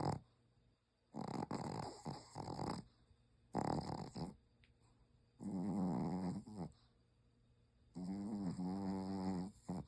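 Pomeranian snoring in its sleep, a snore that hardly sounds like a dog's. Four snores come about two seconds apart, and the last two carry a clear pitched tone.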